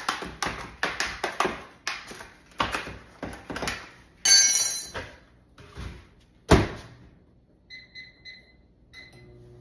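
A plastic food tray being handled, with a run of clicks, knocks and crinkling, then a microwave oven door shut with a loud thunk about six and a half seconds in. Several short keypad beeps follow, and near the end the microwave starts up with a low hum.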